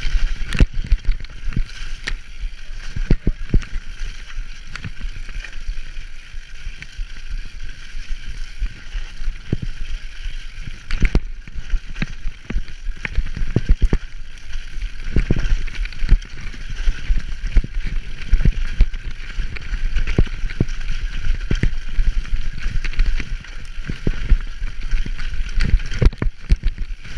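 Downhill mountain bike running fast over a rough, muddy trail, heard from a handlebar-mounted camera: a steady rush of noise with frequent irregular knocks and rattles as the bike hits bumps.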